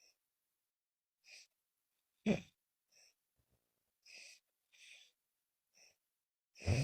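A sleeping woman breathing hard in short, hissing breaths about once a second, with silence between them. Two louder, deeper snoring breaths come about two seconds in and near the end; the breathing sounds laboured.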